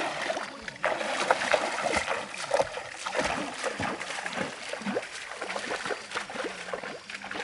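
Bare feet splashing step by step through a shallow stream, water sloshing around the legs, growing fainter as the wader moves away.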